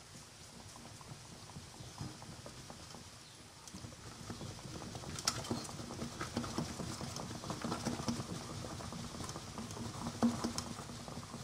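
Spoon stirring thick cake batter in a bowl: a quick, soft patter of wet mixing with a few sharper clicks of the spoon on the bowl, louder from about four seconds in.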